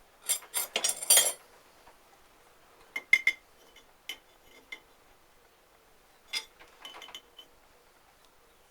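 Irregular metallic clinks and clicks of a steel ring nut and tools being handled on a Citroën 2CV driveshaft output hub as the nut is started on its thread: a quick run of loud clinks in the first second or so, then scattered single clicks.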